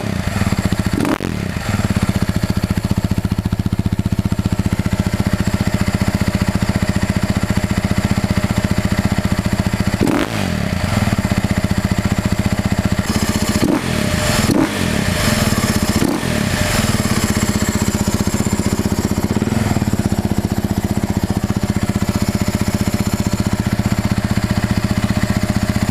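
Husaberg 450 cc four-stroke dirt bike engine idling steadily, with a few brief revs of the throttle near the middle.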